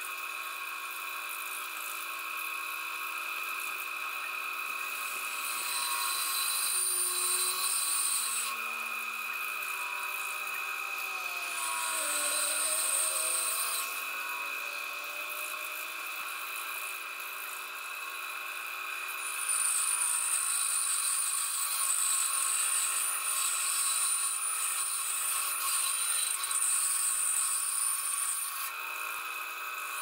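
Bandsaw running with a steady motor whine, its blade cutting through small pieces of dogwood in several passes, the longest from about 20 s to 28 s, with pauses between cuts.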